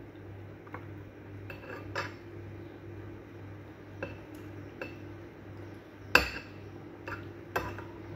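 A metal spoon clinking and scraping against a ceramic plate in several separate clinks, the loudest about six seconds in, over a steady low hum.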